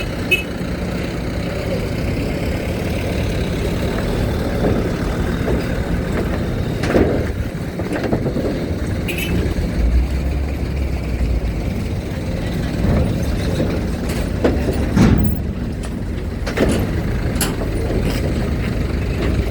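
Truck engines running with a steady low rumble as vehicles drive onto a ferry, with a few sharp knocks from time to time.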